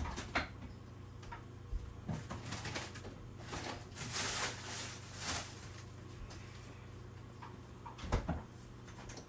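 Sausages simmering in a frying pan of bubbling water and fat: scattered pops and crackles, with a denser spell of sizzling around the middle, over a steady low hum.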